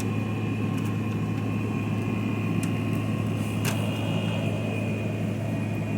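Hisense 12,000 BTU window air conditioner running with its compressor on: a steady low hum under fan and airflow noise, with a faint click or two.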